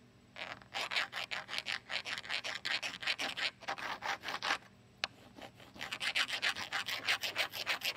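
Metal key scraped rapidly back and forth across a Pergo Extreme rigid-core vinyl plank, a quick run of rasping strokes several a second: a scratch test of the plank's 22 mil wear layer. The scraping stops for about a second midway, with a single click, then starts again.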